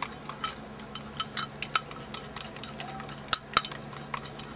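A metal utensil stirring a thick mayonnaise dipping sauce in a white ceramic bowl, clinking and tapping irregularly against the bowl, with the sharpest clink a little after three seconds in.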